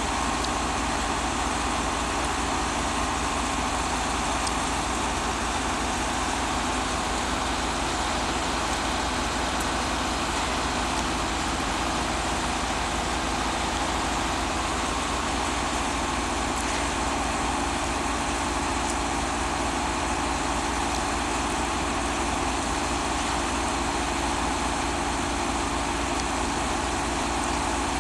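Diesel engine of a slow-moving overhead-line work train running steadily at an even, low-revving pace while the contact wire is being laid.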